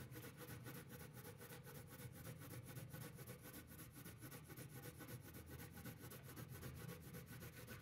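Faint scratching of an Artisto coloured pencil on slightly grained paper, in rapid, even back-and-forth strokes as another layer of blue is laid down.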